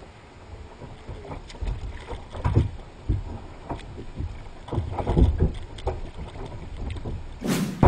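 Irregular knocks, thuds and water splashing from a small fishing boat on the water. A short, loud rush of noise comes near the end.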